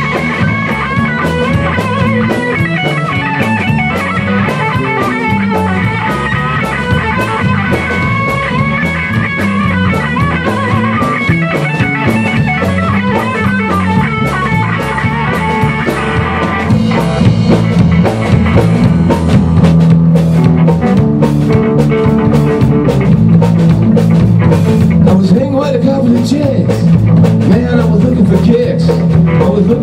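Rock band playing an instrumental passage on electric guitars and a drum kit, with a guitar playing bending lead lines over the rhythm. About 17 seconds in, the band gets louder, with heavier cymbals.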